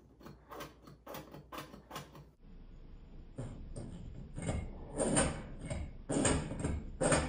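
A small plastic hand sanitizer bottle squeezed again and again over a palm: a quick string of clicks for the first two seconds, then a run of louder squirts about every half second to a second as the nearly empty bottle spurts out little.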